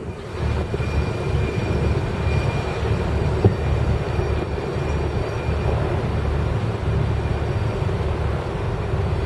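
Steady low drone and rushing noise of a motor boat running under way, with a faint high whine for the first few seconds and a single light click midway.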